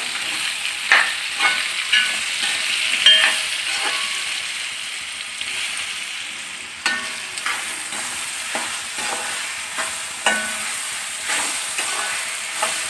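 Diced raw mango sizzling in hot oil in a metal kadai over a high flame, while a steel spatula stirs it, scraping and clinking against the pan at irregular intervals with brief metallic rings.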